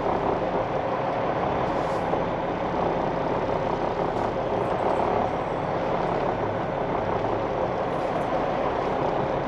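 Semi truck's Cummins X15 diesel engine running steadily at low speed as the Peterbilt creeps slowly through a turn, heard from inside the cab.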